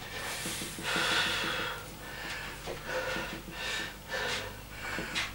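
A man breathing hard in quick, heavy breaths, about seven of them, as he catches his breath after a set of barbell curls.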